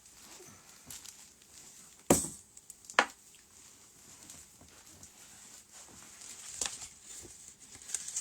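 Objects being handled and set down on a table: two sharp knocks about a second apart, then lighter clicks and rustling.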